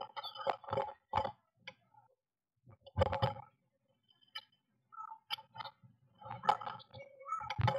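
A blue tit moving about inside a wooden nest box, making irregular clicks and taps on the wood and rustling the nest material. The taps are loudest about three seconds in and near the end.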